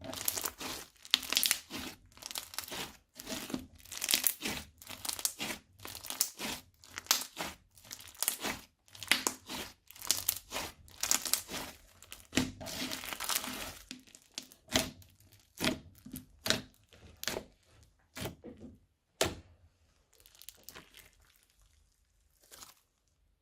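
Crunchy slime being squeezed and pressed, giving crackly, popping crunches about two to three a second. They thin out to scattered pops about two-thirds of the way through and fade near the end.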